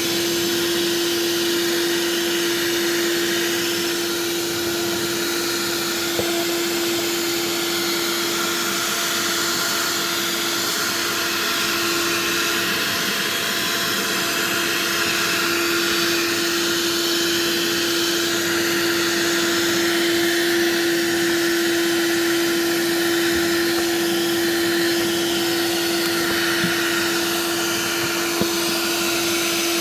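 Black & Decker 14.4 V cordless handheld vacuum running steadily at full power: one constant motor whine over the rush of air.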